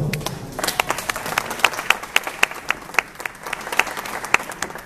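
A small audience applauding, with one nearby person's claps standing out, even and at about four a second, over the rest.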